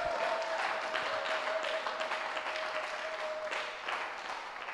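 Congregation applauding, dying away toward the end, with a steady high tone held under the clapping for the first three and a half seconds.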